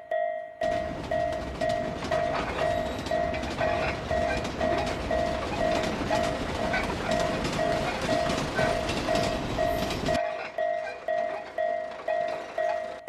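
Japanese level-crossing warning bell dinging steadily, about twice a second. A train passes from about half a second in, its noise cutting off suddenly at about ten seconds in while the bell keeps ringing.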